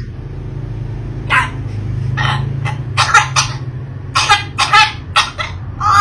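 African grey parrot making a string of short cough-like sounds, about ten in quick succession, over a steady low hum.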